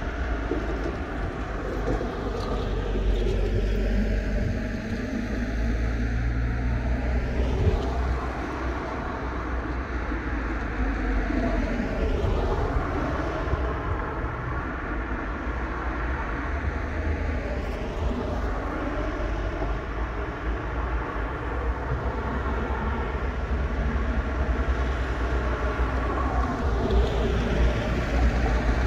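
Heavy street traffic at close range: the engines of vans, cars and coaches running in slow, stop-and-go traffic, with a steady low rumble. Several vehicles pass close by, one after another.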